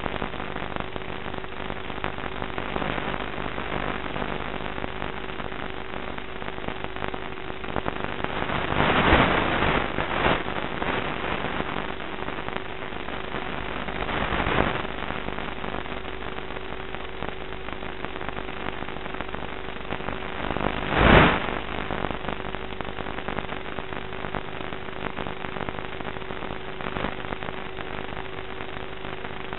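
Onboard audio from an FPV model plane's video link: a steady hiss with a faint steady hum, and three louder rushes of noise about nine, fourteen and twenty-one seconds in.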